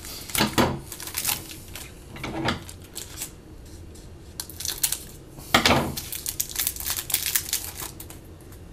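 Hands handling trading cards and foil card-pack wrappers: rustling, crinkling and scattered light clicks of cards, loudest a little under six seconds in.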